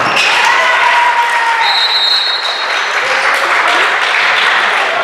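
Spectators in a gym clapping and cheering, with shouted voices in the crowd. A high whistle blows for about a second near the middle.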